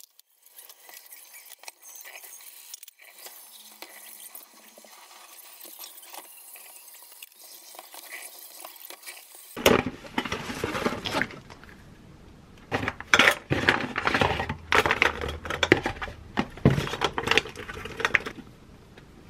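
Kitchen tap water running into the sink and a plastic basin while dishes are rinsed. About ten seconds in it changes to a quick run of sharp clinks and rattles: coffee capsules being handled from a cardboard box and dropped into a metal capsule tin.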